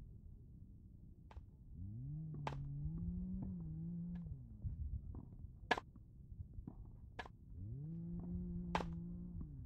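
Tennis rally on a hard court: sharp pocks of the ball off the racquet strings and off the court, about every second and a half. Under them, twice, a low hum swells up, holds for a couple of seconds and falls away.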